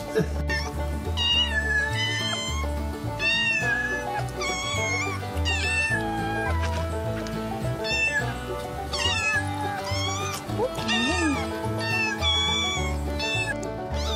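Kittens meowing over and over in short, high calls, roughly one a second, each bending up and down in pitch. Background music with a steady bass beat plays under them.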